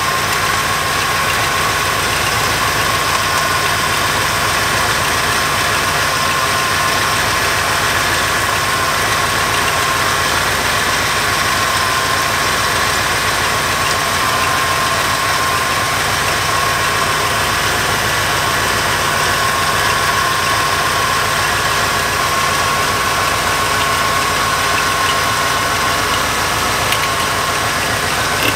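Small-block Chevy V8 idling steadily with an even, rapid pulse, an engine that doesn't run very well and is being tuned.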